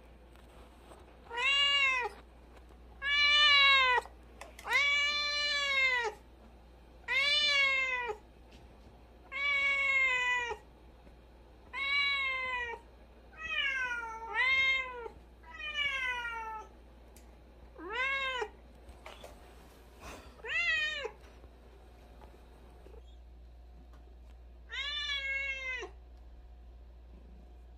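Cat meowing repeatedly: about a dozen drawn-out meows, each rising and then falling in pitch, with short pauses between them and one last meow after a longer pause near the end.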